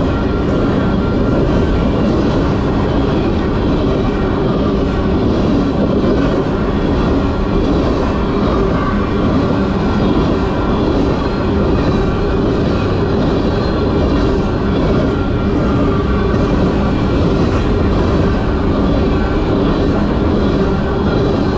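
Freight train rolling past on the rails, a steady, loud rumble of cars and wheels that neither builds nor fades.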